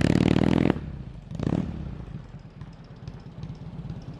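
1946 Indian Chief's flathead V-twin engine running as the motorcycle rides away; the loud, even firing cuts down sharply under a second in, a brief rev swells about a second and a half in, and the engine then runs on faintly before growing louder near the end.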